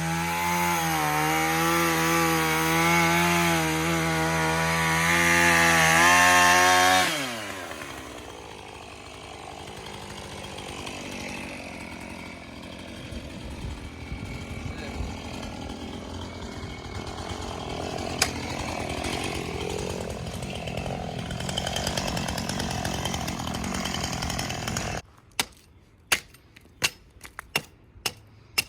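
Gas chainsaw running under load, its engine pitch wavering as it cuts, then shut off about seven seconds in and winding down. A quieter stretch follows, and near the end come a run of sharp clicks.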